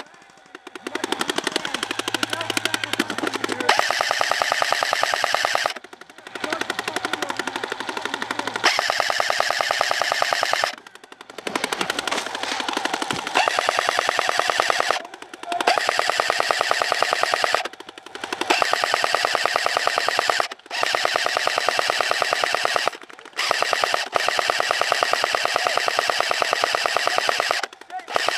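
A&K M249 SAW airsoft electric gun firing long full-auto bursts of about two to five seconds each, its gearbox cycling rapidly, with short breaks between bursts.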